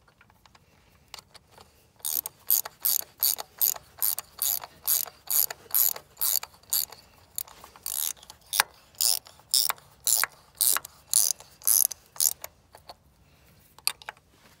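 Hand ratchet wrench clicking in quick back-and-forth strokes, about two a second for some ten seconds, as a plug is tightened back into a diesel fuel lift pump.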